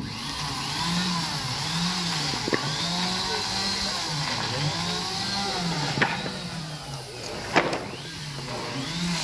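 A small motor running, its pitch rising and falling about once a second, with three sharp knocks partway through.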